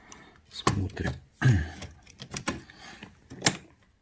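Hands working on a disassembled LCD TV's metal chassis and plastic frame: a few separate sharp clicks and knocks, the loudest near the end.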